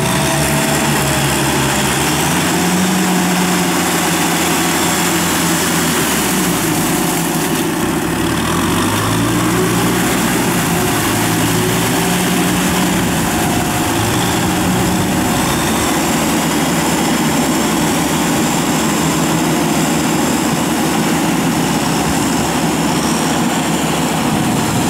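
Diesel tractor engines running steadily under load as the tractors work a flooded rice paddy, one with a rotary tiller and one on cage wheels. The engine note dips and rises once, about a third of the way in.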